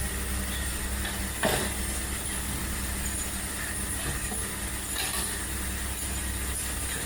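Automatic centrifugal fan impeller assembly machine running with a steady mechanical hum and hiss, with a sharp clack about one and a half seconds in and a fainter one near five seconds.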